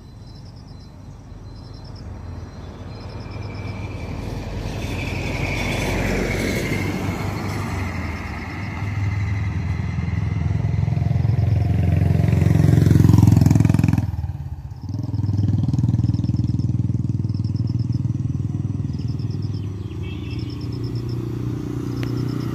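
A motor vehicle engine, likely a motorcycle, grows louder over several seconds to a peak. It drops away sharply for a moment, then runs on steadily at a lower level. Short high chirps recur faintly behind it.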